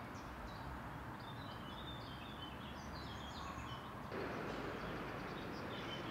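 Outdoor ambience: small birds chirping repeatedly over a steady background hiss, which steps up slightly about four seconds in.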